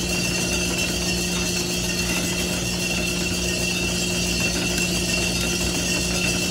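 Drum coffee sample roaster running mid-roast: a steady mechanical hum with a steady high whine above it.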